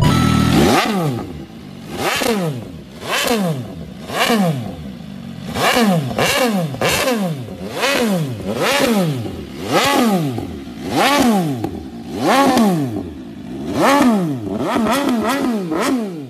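MV Agusta Brutal 800 RR's three-cylinder engine blipped repeatedly, about once a second. Each rev rises sharply in pitch and falls away.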